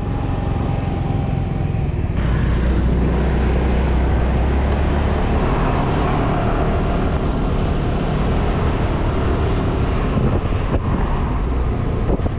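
Yamaha 125 cc scooter's engine pulling away and then running along at road speed, with wind rushing over the microphone. The rumble gets louder about two seconds in as it picks up speed.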